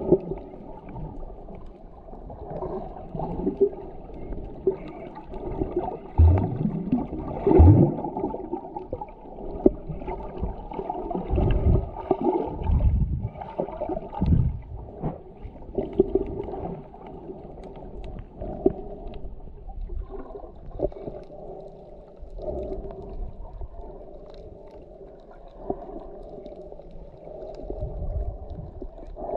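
Muffled underwater water noise picked up by a submerged camera while snorkeling: irregular sloshing, gurgling and swooshes of water moving past it, louder in surges for the first half and calmer later.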